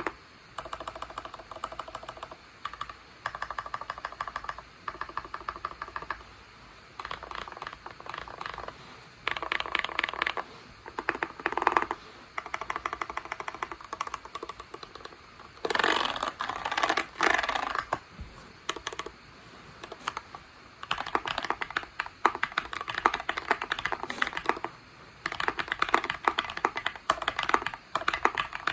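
Tofu60 60% mechanical keyboard with a brass plate and PE foam mod being typed on: bursts of rapid keystrokes separated by short pauses, with a denser, louder flurry about halfway through.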